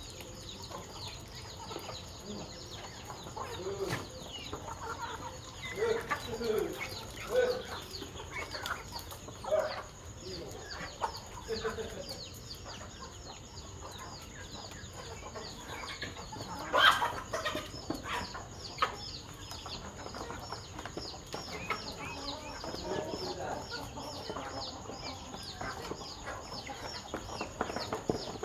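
Chickens clucking and calling at feeding time, over a steady run of short high peeps several times a second. One loud sharp squawk comes about 17 seconds in.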